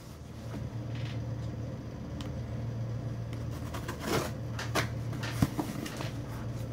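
Cardboard shipping box handled and cut open with a folding knife: scattered rustles and scrapes, a longer scraping burst about four seconds in and a sharp click shortly after, over a steady low hum.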